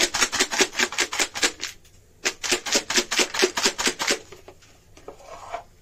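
Potato chips rattling in a plastic bowl that is shaken hard to toss them with spices, in two quick bouts of about six shakes a second with a short pause about two seconds in.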